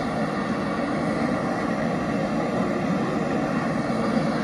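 Steady city street din: a continuous rumble of vehicle traffic, with no single event standing out.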